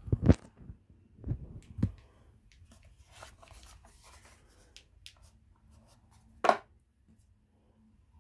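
Handling sounds of an empty cardboard perfume box being lifted off a kitchen scale and of a perfume bottle and its metal cap on a tabletop: a few knocks in the first two seconds, light rustling, then one sharper knock about six and a half seconds in.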